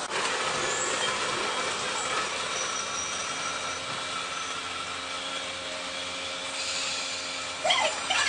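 Electric train running through a junction of points, a steady rolling noise with a faint held whine. A brief louder wavering sound comes near the end.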